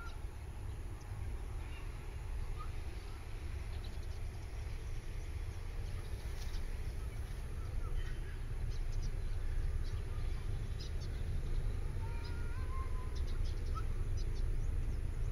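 Outdoor ambience: a steady low rumble of wind buffeting the microphone, with scattered short bird chirps, a couple of little rising whistles and faint high ticks.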